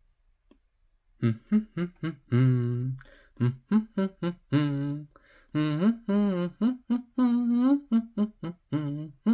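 A voice humming a tune without words, starting about a second in: a string of short notes with a few longer held ones.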